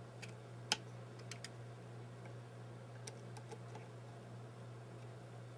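Faint, scattered small clicks and ticks of fingers handling and adjusting a 3D-printed plastic camera mount and Raspberry Pi camera board, the sharpest about three-quarters of a second in, with a few more about three seconds in, over a steady low hum.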